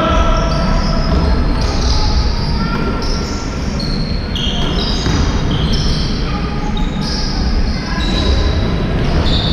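Basketball shoes squeaking on a sports-hall floor during play: many short, high squeaks, several a second, with the ball bouncing, over a steady low rumble.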